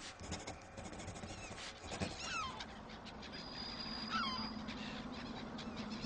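Faint background with an animal's short, sharply falling calls, one about every two seconds, and a low steady hum that comes in about halfway through.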